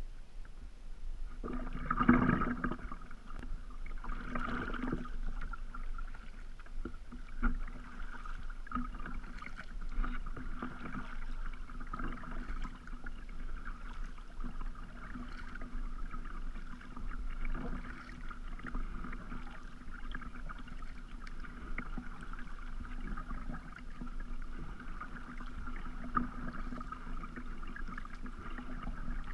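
Kayak being paddled on calm water: a double-bladed paddle dipping and pulling, water dripping off the raised blade, and water moving steadily along the plastic hull.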